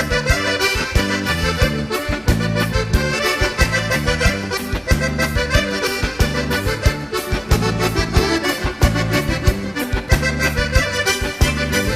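Accordion playing an instrumental passage of a gaúcho dance song, backed by stepping bass notes and a steady beat.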